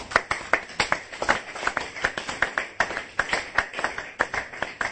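A rapid, uneven series of sharp claps or clicks, about five a second.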